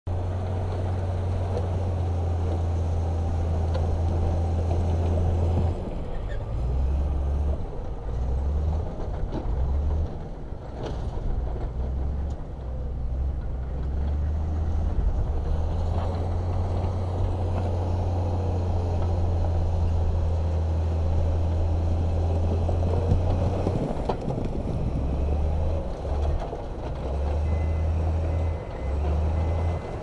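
Heavy diesel engines of dump trucks and a bulldozer running, a deep steady drone that breaks up and shifts in load a few times. Near the end a faint reversing alarm beeps.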